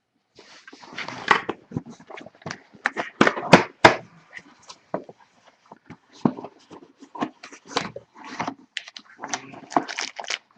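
A box of trading cards being torn open by hand and its card packs pulled out: irregular tearing, crinkling and rustling with sharp clicks and knocks.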